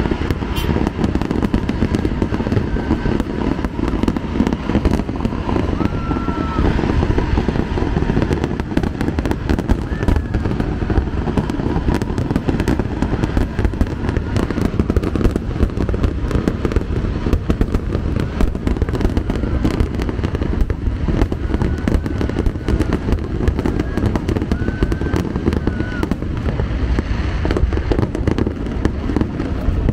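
Aerial fireworks display going off in a dense, continuous barrage of booms and crackles.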